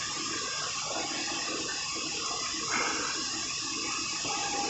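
Steady rushing whoosh of a twin-engine widebody airliner's jet engines at idle thrust as it taxis, with a brief louder swell a little after halfway.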